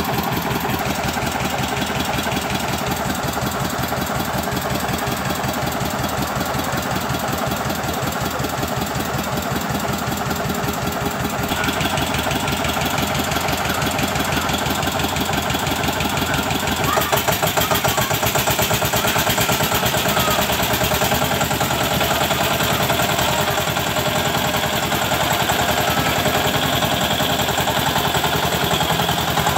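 1990 Eicher tractor's diesel engine running steadily, its rapid, even firing pulses going throughout, a little louder from about 17 seconds in.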